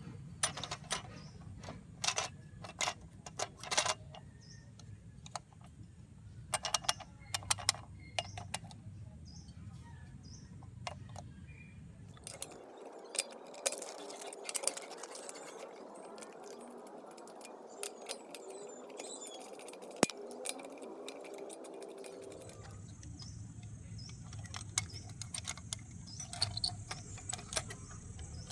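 Scattered sharp clinks and clicks from wheel hardware being handled: a lug wrench on the lug nuts and the center cap being fitted to an alloy wheel hub. Steady background noise runs under them.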